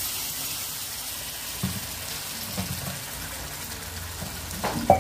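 Masala paste and fried onions sizzling in hot oil in a metal kadai, a steady hiss. A few knocks and scrapes of utensils on the pan, the loudest near the end.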